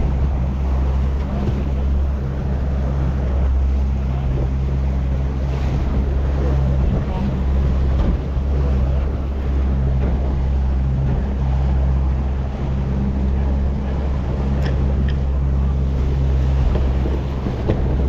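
Outboard motor running at a steady speed as a small aluminium boat moves along, with water rushing past the hull and wind buffeting the microphone.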